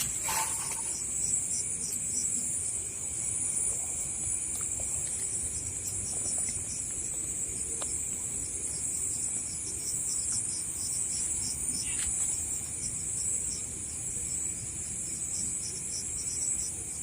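Crickets and other night insects singing: a steady high-pitched trill with a second, rapidly pulsing chirp just below it, and a few faint clicks.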